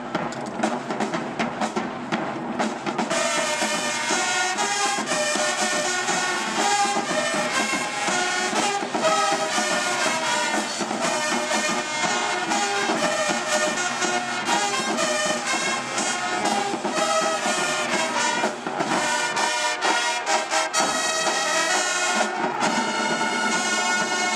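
Marching band playing, brass section of trombones and trumpets over drums; the brass comes in fuller about three seconds in and the music cuts off at the end.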